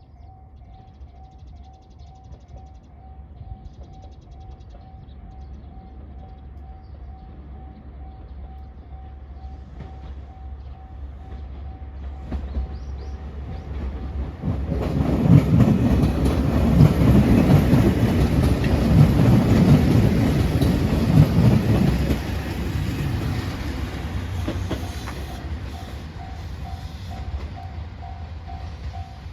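Level crossing warning bell ringing with a steady repeating tone, then about fifteen seconds in a Nanpu limited express diesel train passes over the crossing loudly for several seconds with rumbling wheels and rail clatter that drown out the bell. The train noise then fades and the bell is heard again near the end.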